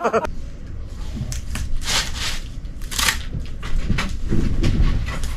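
Thin sheet material crinkling and crackling as hands work it on a tabletop, in irregular short crackles.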